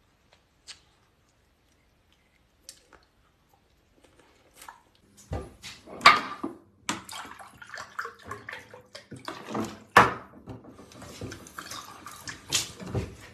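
A few faint clicks, then from about five seconds in a kitchen faucet's water running and splashing into the sink, uneven, with several sharp loud splashes or knocks.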